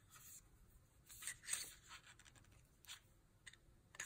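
A few short, faint scratchy rubs of a dry cleaning patch being worked through a Glock pistol's barrel, the longest about a second in.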